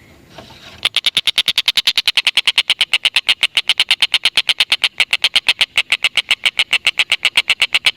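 Tengkek buto (stork-billed kingfisher) giving its long 'ngekek' cackle without a break. It is a fast, even run of sharp high notes, about seven a second, that starts about a second in after a short pause.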